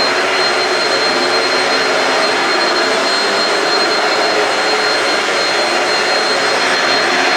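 Shark Rocket stick vacuum with DuoClean running steadily at full power: a loud rush of airflow with a thin, steady high-pitched motor whine.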